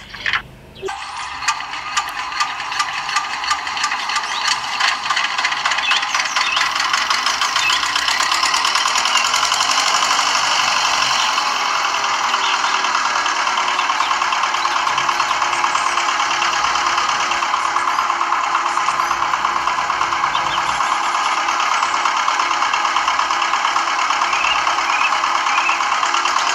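Miniature model engine starting up and driving a belt-driven toy water pump: separate knocks that come faster and faster over the first several seconds, settling into a steady, even running sound.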